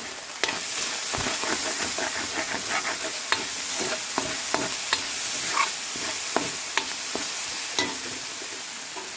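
Garlic, onion and tuna frying in oil in a metal wok with a steady sizzle, while a metal ladle stirs and scrapes against the pan in irregular clinks.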